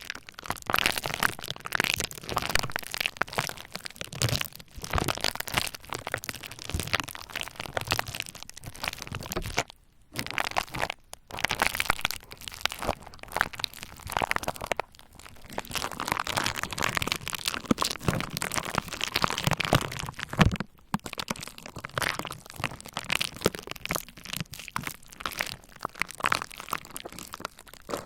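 Bubble wrap crackling and popping as it is pressed and worked with a roller: dense runs of small pops and crackles, broken by a few brief pauses.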